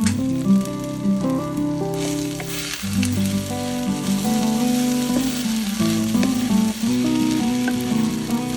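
Food sizzling as it fries in a hot pan, a steady hiss, under background music with held notes that is the loudest sound.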